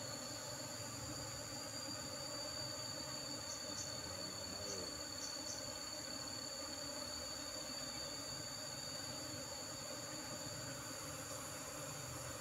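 Steady, high-pitched insect trilling, with a few short chirps on top around the middle.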